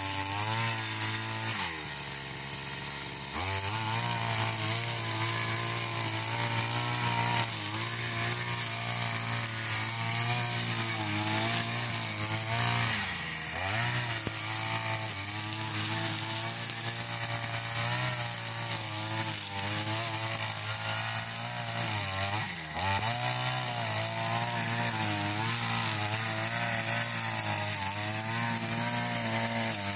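Petrol string trimmer (brush cutter) running at high revs while mowing grass, its pitch wavering with the throttle. The revs sag for about two seconds near the start, then pick up again, and dip briefly twice more.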